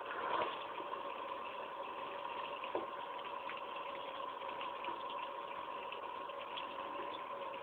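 Kitchen tap running steadily, the stream splashing over hands and phone parts into a stainless steel sink.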